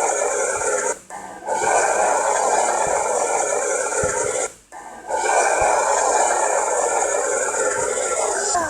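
Long, drawn-out cartoon belches, three in a row: one breaks off about a second in, the next runs until about four and a half seconds, and the last carries on nearly to the end.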